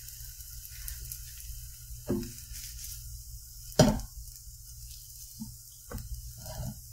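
Omelet sizzling in a nonstick skillet while a silicone spatula pushes and tucks its edges. There are a few short knocks of the spatula against the pan, the sharpest about four seconds in.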